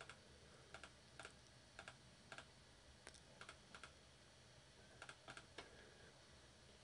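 Faint, irregular clicking of a computer mouse as balloons are clicked into place in a design grid, about a dozen clicks, many in quick pairs.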